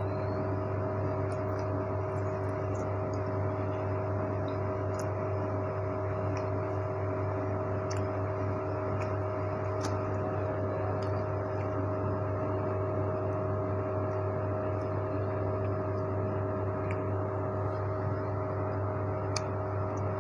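Steady hum of a running fan, holding an even pitch throughout, with faint light clicks now and then.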